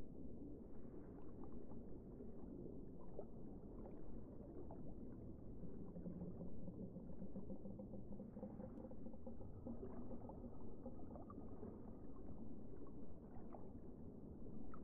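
Faint, muffled water noise picked up by a submerged camera: a low, steady churning hiss with scattered small crackles.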